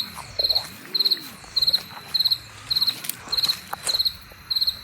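A cricket chirping steadily, about two chirps a second, each chirp a quick pulsed trill.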